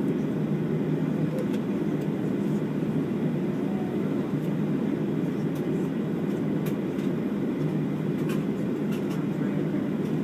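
Boeing 737-700's CFM56 engines running at low power, heard inside the cabin as a steady, even rumble while the airliner taxis.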